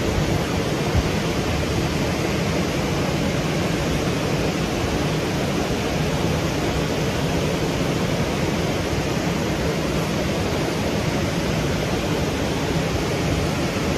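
Steady rushing of water pouring over a waterfall, with one brief knock about a second in.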